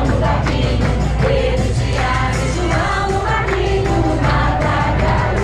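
A group singing a Christian praise song over backing music played through loudspeakers.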